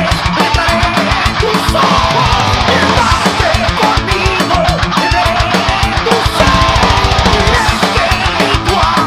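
Heavy metal song by a full band: distorted electric guitars over drums, with a fast, dense kick drum pattern.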